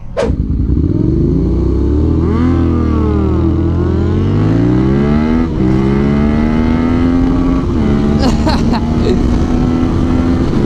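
Motorcycle engine pulling away hard, revs rising and falling, then climbing again with a gear change about five and a half seconds in, and climbing once more before holding steady at speed near the end. A short click at the very start.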